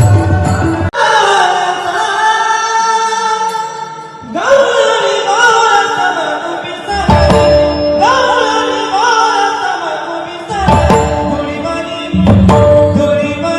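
Marathi devotional kirtan music: a singer carries a bhajan melody with sliding ornaments over drums. The drums drop out about a second in and come back around the middle.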